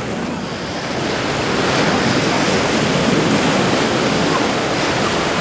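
Steady rush of surf, with wind buffeting the microphone.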